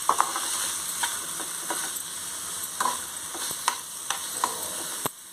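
Soya chunks, onions and tomatoes sizzling in oil in a steel pan while a spatula stirs them, with scattered scrapes and taps of the spatula against the pan over a steady sizzle.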